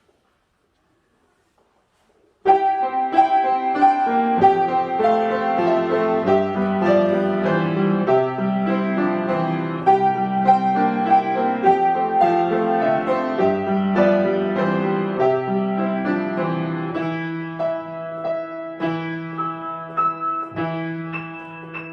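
Near silence, then solo piano playing begins suddenly about two and a half seconds in: a melody over busy accompanying notes, growing gradually softer toward the end.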